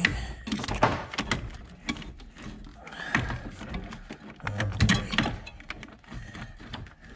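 Irregular metallic clicks, clinks and knocks of hand tools, a socket wrench and extension, working at the brake master cylinder in an engine bay.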